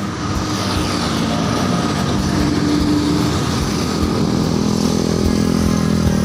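A road vehicle passing close by: engine and tyre noise that grows louder over the first couple of seconds and then holds steady.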